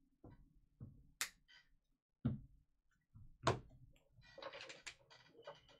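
Trading cards and their packaging being handled on a table: scattered sharp clicks and knocks, a dull thump a little past two seconds in, the loudest knock about three and a half seconds in, then a brief crinkling rustle.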